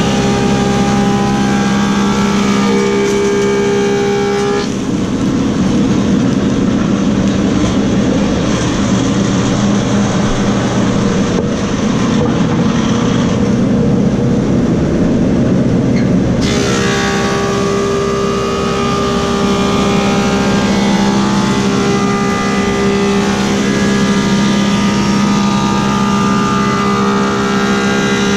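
Woodmaster 725 planer with a helical cutterhead running with a steady motor hum and whine. From about five seconds in to about sixteen seconds it changes to a dense rushing noise as a black cherry slab is fed through and planed, then it returns to running free.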